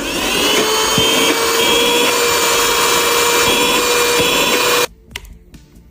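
Battery-powered vacuum cleaner, freshly fitted with two new cells, switched on and running: the motor spins up with a short rising whine, runs with a steady hum and whine, and cuts off suddenly about five seconds in, showing the repair worked.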